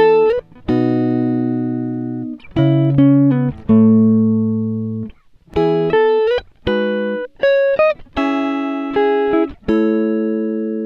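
Background music: plucked string chords, each struck and left to ring and fade before the next.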